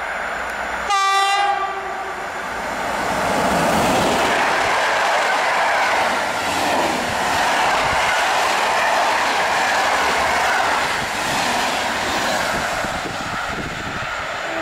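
An EP09 electric locomotive sounds one short horn blast about a second in. Then its train of InterCity passenger coaches passes at speed with a loud, steady rush of wheel and air noise and clattering wheels on the rails.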